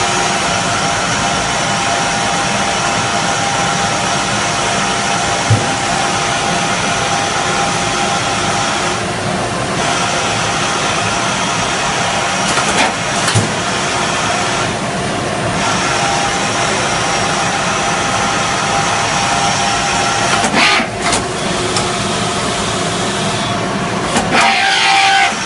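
Citizen L20 CNC Swiss-type lathe running: a steady machine hum and hiss with several fixed tones, broken by a few sharp clicks and short changes in the noise.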